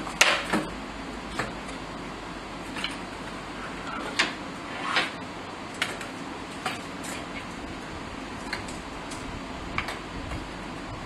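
Hard plastic atom balls and connectors of a large DNA model clicking and knocking together as nucleotide pieces are handled and fitted onto it. There are about a dozen separate clicks, the loudest just after the start, over a steady low hum.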